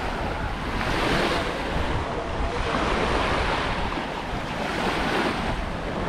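Small waves washing onto a sandy shore, the wash swelling a couple of times, with wind buffeting the microphone as a low rumble underneath.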